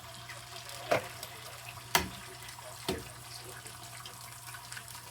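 Three sharp knocks, about a second apart, over a steady low hiss.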